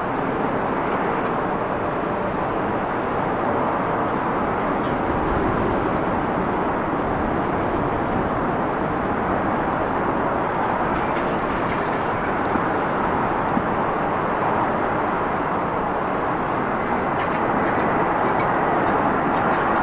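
Jet engines of a twin-engine airliner landing and rolling out on the runway, a steady rushing noise at an even level throughout.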